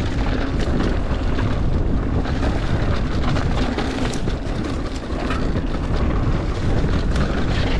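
A mountain bike riding over rocky trail: wind noise on the microphone and the tyres running over rock, with many quick rattles and knocks from the bike over the bumps.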